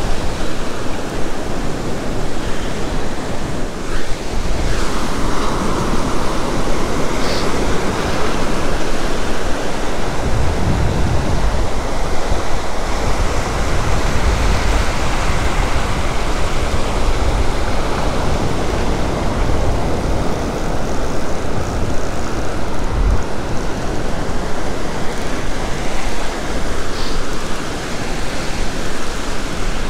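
Ocean surf breaking and washing up the sand around the angler's feet, with gusts of wind rumbling on the microphone about a third of the way in and again later.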